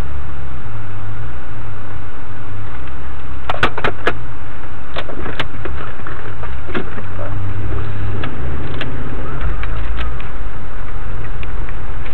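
Off-road vehicle running, heard as a loud, uneven low rumble that overloads the microphone. Sharp clicks or knocks come in a quick cluster about three and a half seconds in, with a few more scattered after.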